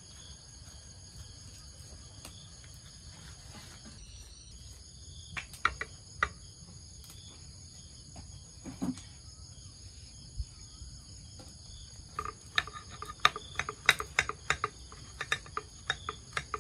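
Crickets chirping in a steady chorus, with a few sharp clicks and taps that come thick and fast over the last few seconds.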